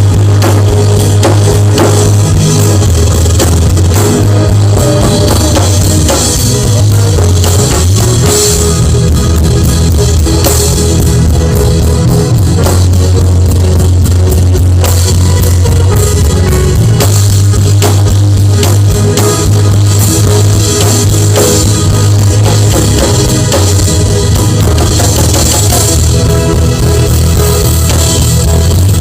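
Instrumental worship music with a full band: drum kit, a heavy bass line and guitar, playing steadily with no singing.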